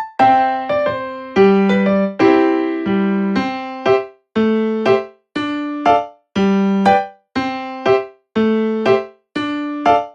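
Background music: a simple melody on electric piano or keyboard, single struck notes that each die away, about two or three a second at an even pace.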